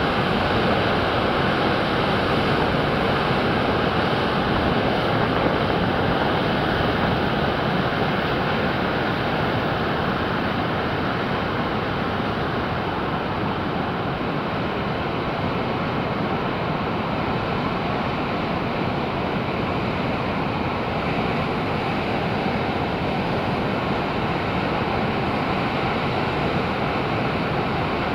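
Heavy Pacific surf breaking and washing over rocks, a steady, unbroken rush of water, heard through tape over the microphone, which leaves it dull with little hiss at the top.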